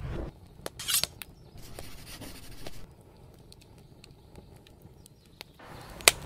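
Fire crackling: scattered sharp snaps and a short rush of hiss about a second in, thinning to faint ticks, then one loud snap near the end.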